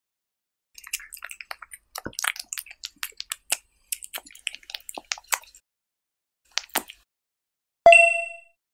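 A cat licking and eating from a plate, close-miked: a run of small wet clicks and smacks of tongue and mouth. Near the end, a single bright ding that rings and fades in about half a second.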